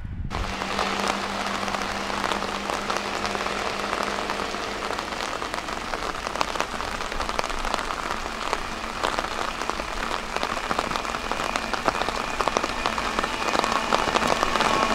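Steady rain pattering, a dense hiss of small drops, with a faint low hum in the first few seconds. The sound swells slightly near the end.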